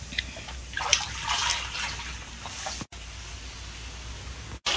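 Boiled sorghum rice being scooped out of its cooking water in a large wok with a perforated skimmer: water sloshing and dripping off the skimmer in irregular splashes.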